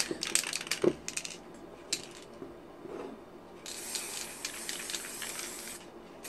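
Aerosol spray-paint can hissing in one steady burst of about two seconds, a little past the middle, after a few light metallic clicks.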